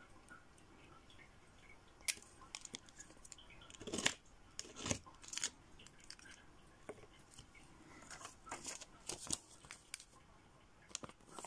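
Faint scrapes and clicks of nail-stamping tools being worked by hand: a polish bottle, the metal stamping plate and the stamper. A few single strokes come in the first half, the loudest about four seconds in, and a quick cluster follows around eight to nine seconds.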